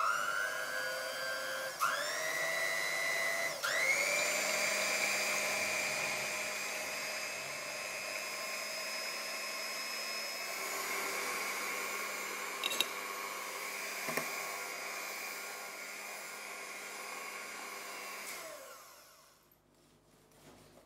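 Electric hand mixer whipping cream in a glass bowl: the motor whine starts and steps up in speed twice in the first few seconds, then runs steadily until it is switched off and winds down near the end. A couple of short clicks come in the middle.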